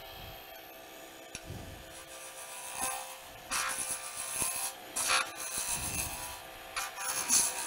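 Wood lathe running with a steady hum while a roughing gouge cuts a spinning pen blank turned between centers. Bursts of shaving and scraping noise start about three and a half seconds in and come in several short passes as the blank is taken down.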